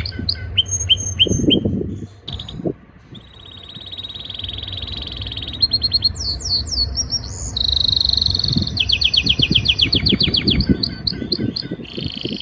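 Male canary singing its breeding-season courtship song to a female: fast trills and rolls of rapidly repeated high notes, a short break about two seconds in, quick sweeping notes later, and a louder buzzy roll at about eight seconds.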